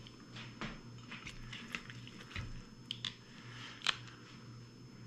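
Quiet kitchen handling: a ceramic baking dish set down on a wooden counter and a cooked pot roast lifted from the slow cooker into it. The sound is a few short, sharp clicks and soft knocks over a faint steady hum.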